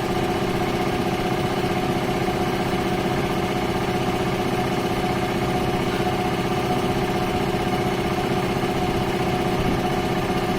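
JSI air compressor motor running steadily with an even hum.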